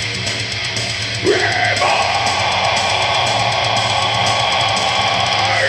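Heavy rock backing track with guitar and drums, played through a speaker. About a second in, a long high note bends up, is held for about four seconds, then drops away near the end.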